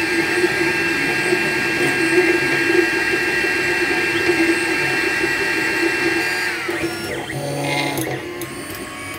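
Desktop 3D printer running at the end of a print: a steady high whine from its stepper motors over a fan hum. About two-thirds of the way through, the whine slides down in pitch and stops, and a few short quick moves follow as the print head travels off the finished print.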